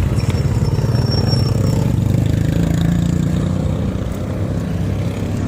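Street traffic: a motor vehicle's engine running close by, a steady low hum that is loudest over the first three seconds or so.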